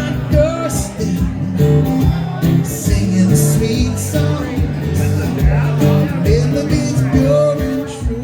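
Acoustic guitar strummed in a steady rhythm, with a voice singing phrases over it now and then.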